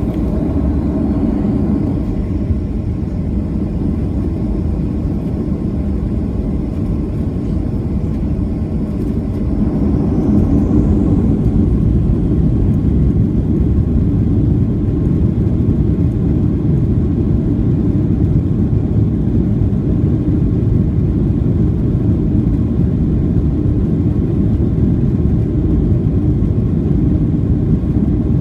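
Boeing 737-700's CFM56-7B jet engines running as a steady low rumble, with a faint high whine that rises in pitch as the sound grows louder about ten seconds in.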